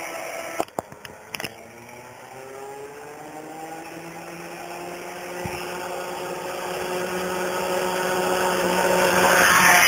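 Tuned scooter engine coming toward the listener under acceleration. Its note rises steadily in pitch and grows louder until the sound cuts off suddenly at the end. A few sharp clicks sound about a second in.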